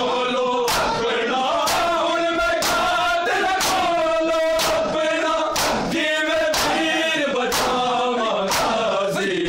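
Group of men chanting a noha lament together, with hands striking bare chests in unison about once a second (matam).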